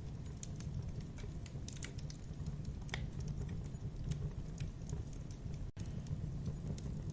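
Campfire burning: irregular crackles and small pops of burning wood over a steady low rumble of the flames, with a momentary dropout in the sound about three-quarters of the way through.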